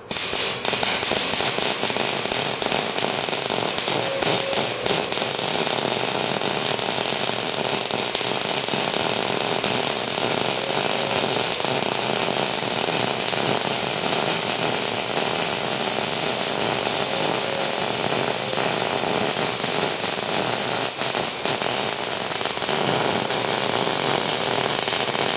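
Millermatic 251 MIG welder's arc running one continuous bead with argon-CO2 shielding gas: a steady, dense crackle that starts at once and stops suddenly at the end of the pass.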